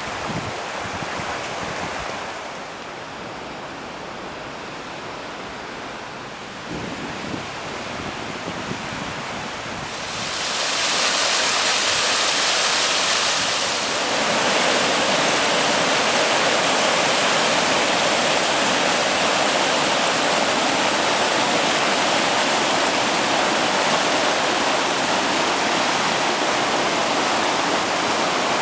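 Mountain stream water rushing steadily. It is moderate at first, then grows louder and fuller about ten seconds in, as if nearer the rapids, and stays steady after that.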